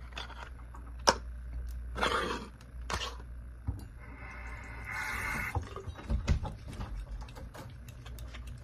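Small toiletry items and packaging being handled and set down on a desk: light clicks, knocks and rustles, with a sharp click about a second in, a longer hiss about halfway through and a few dull thumps after it.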